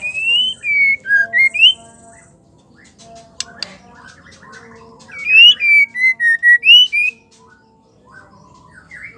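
White-rumped shama singing: two runs of loud, clear whistled notes sliding up and down, one at the start and another about five seconds in, with softer twittering and a few sharp ticks between them.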